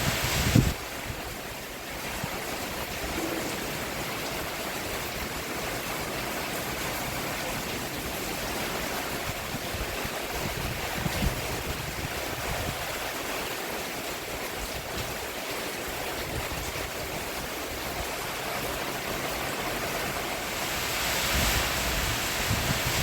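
Steady rain falling on a roof, swelling heavier for the last couple of seconds, with a sharp knock just under a second in.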